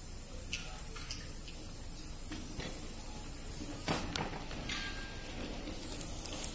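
Room tone of a large hall with a steady low hum and scattered faint knocks and clicks. One sharper knock comes just before four seconds in.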